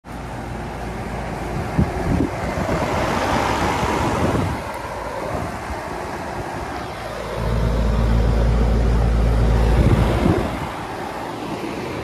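Several central air conditioner and heat pump outdoor condenser units running in cooling mode: a steady compressor hum under the rush of the condenser fans. For about three seconds in the middle a deep low rumble swells in as the camera passes over a unit's fan discharge.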